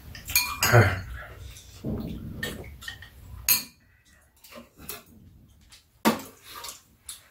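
Metal spoons and chopsticks clinking and scraping against ceramic bowls during a meal, a string of separate clinks with a louder cluster in the first second.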